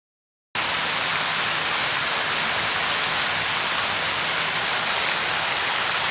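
A steady, even hiss of noise, like static or rushing water, that starts abruptly about half a second in.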